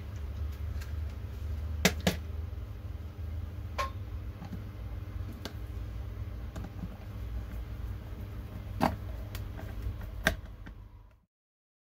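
Scattered sharp plastic clicks and knocks from handling a PVC pipe fitting with a 3D-printed iris valve fixed into it, over a low steady hum. The sound cuts out near the end.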